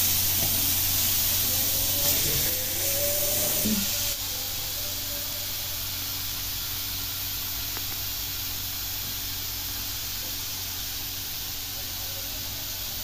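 Marinated pomfret sizzling and steaming on a stovetop grill-and-steam pan with water in its base: a steady hiss, a little louder for the first four seconds.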